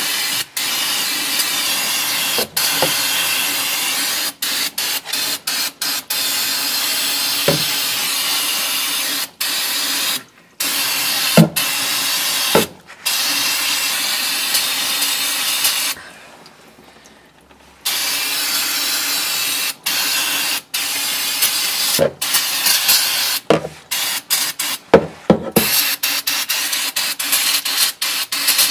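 Aerosol brake parts cleaner spraying into an open differential housing in long hissing bursts, flushing out old gear-oil residue. There are short breaks between bursts and a pause of about two seconds midway.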